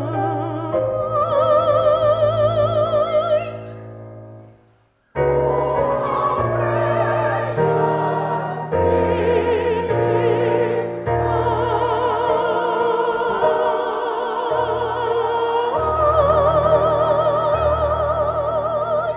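Operatic solo singing with wide vibrato over sustained low accompaniment, likely piano. The music fades out about four seconds in, stops briefly, then starts again abruptly and carries on.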